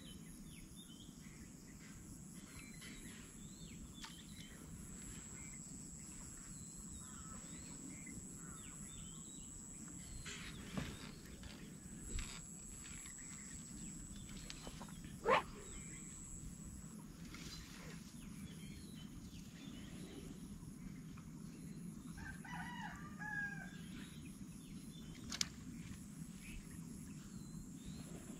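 Faint outdoor ambience: a steady low hum, with a thin high steady whine through the first half. A few sharp clicks come through it, the loudest about halfway. A single drawn-out animal call, about a second and a half long, sounds near the end.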